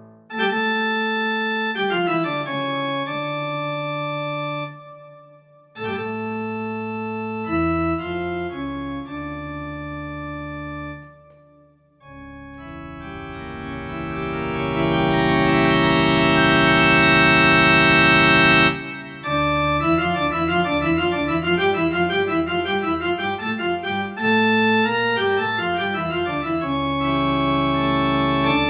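Strauss Rottman Sonata digital piano played on an organ voice: held chords that sustain without fading, then a long chord that swells up and cuts off suddenly, followed by quickly repeated chord notes.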